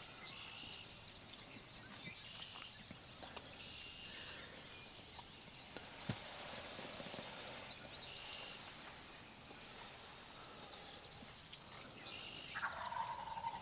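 Rain pattering on a ground blind, with birds calling outside in short, repeated whistled notes and a lower, longer call near the end.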